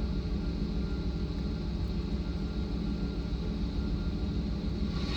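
A heavy engine running steadily at idle: a low, even rumble with no change in speed.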